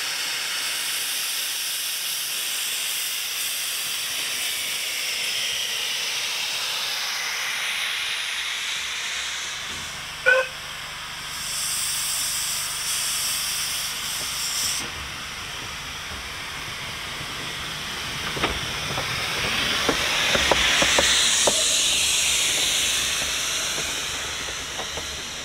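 A narrow-gauge Bagnall-type steam locomotive standing with steam up, steam hissing steadily, then one short whistle blast about ten seconds in. The locomotive then moves off, steam hissing from its cylinder drain cocks, with a run of sharp clicks and clanks from the wheels and motion.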